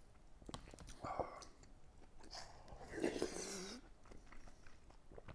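A person chewing food with small mouth clicks, and a brief murmur of the voice about three seconds in.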